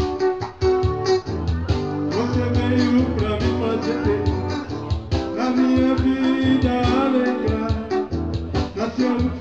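Live band music: guitar playing over a steady beat, an instrumental passage between sung verses.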